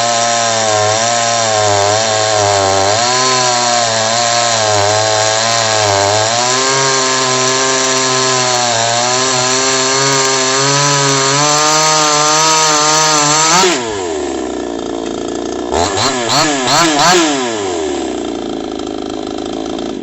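Chinese 52cc two-stroke chainsaw, run with its base gasket removed, held at full throttle with its pitch wavering slightly. About two-thirds of the way through, the revs drop to idle, it is blipped twice, then it idles and cuts off at the very end.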